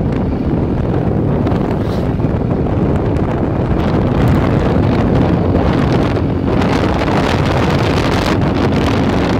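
Loud, steady wind noise buffeting the microphone of a moving motorcycle, with the bike's engine running underneath.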